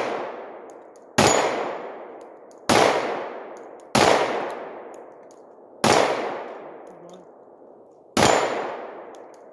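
Five pistol shots from a Glock handgun, fired singly at an uneven pace about one and a half to two seconds apart, each followed by a long echo that dies away.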